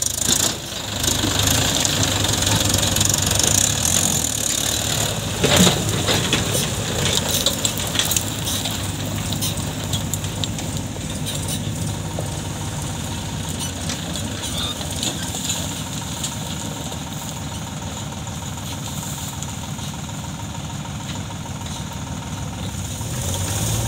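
Diesel tractor engine running steadily near idle, with a single sharp thump about five and a half seconds in.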